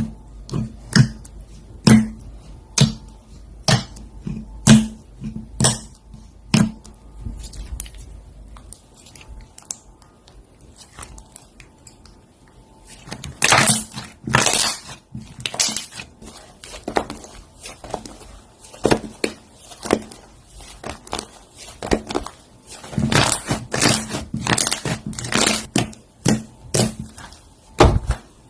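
Slime being squeezed and poked by hand, making sharp wet pops about once a second at first, then quicker runs of small pops and clicks in two busy stretches later on.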